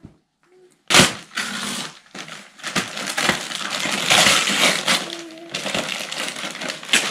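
Wrapping paper being ripped and crumpled as a present is unwrapped: a loud burst of tearing about a second in, then continuous crackling and rustling.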